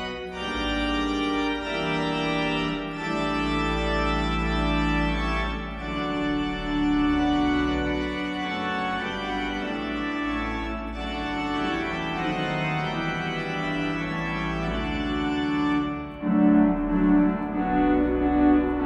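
Sampled cathedral pipe organ played through Hauptwerk virtual organ software: sustained full chords over a deep pedal bass. About sixteen seconds in the texture changes, as the highest pitches drop away and louder mid-range notes come in.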